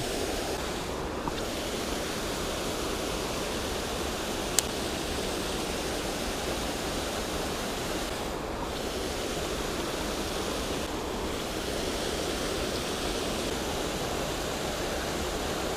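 Steady rush of flowing creek water, with one short sharp click about four and a half seconds in.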